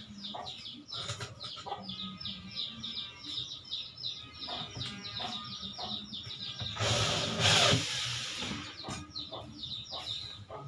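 Small birds chirping rapidly and continually, each chirp a quick falling note, with a few light knocks. About seven seconds in comes a loud, even hiss lasting about a second and a half.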